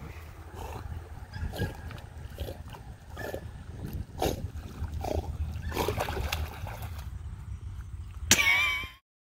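A young dog swimming with a training bumper in its mouth, its breaths and paddling making short puffs and splashes roughly once a second. Near the end comes one loud brief sound with a wavering pitch, and then the sound cuts off.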